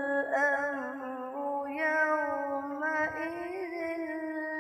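A boy's voice reciting the Quran in melodic tajweed style, holding one long drawn-out note that wavers slightly and lifts a little about three and a half seconds in.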